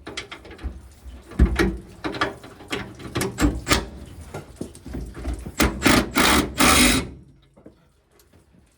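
Hand tools working on a gooseneck hitch's mounting bolts: a run of clicks and metallic knocks, with a louder stretch of rattling near the end that then stops.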